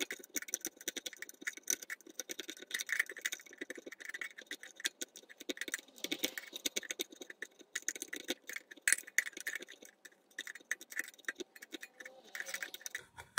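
A small screwdriver scraping and clicking against the fan vanes of a 1976 Electrolux Z87 vacuum cleaner motor as the vanes are cleaned of dirt: a rapid, irregular run of scrapes and ticks.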